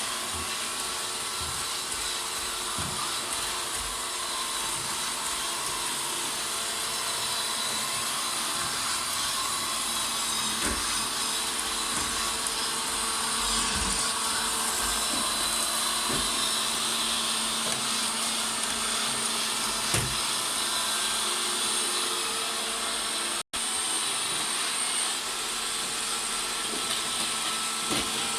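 Robot vacuum cleaner running: a steady whir from its fan and brushes, carrying a few thin whining tones, with occasional low knocks.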